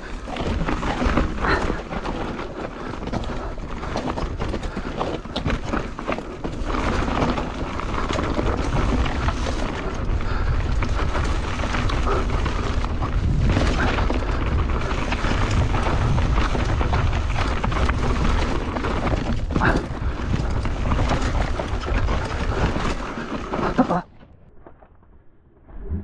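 Wind buffeting the camera microphone and a hardtail mountain bike rattling over a rough dirt trail at speed, with frequent knocks from the tyres and frame. The noise cuts off suddenly near the end.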